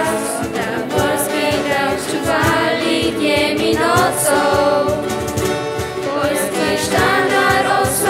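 A group of young voices singing a song together in harmony, accompanied by strummed acoustic guitar.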